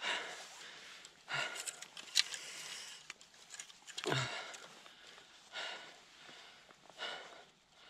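A man breathing hard close to the microphone, a loud rushing breath about every second and a half, with a few sharp clicks of handling around two seconds in.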